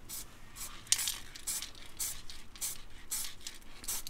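Aerosol can of exhaust paint being worked in a series of short, sharp strokes, about two or three a second.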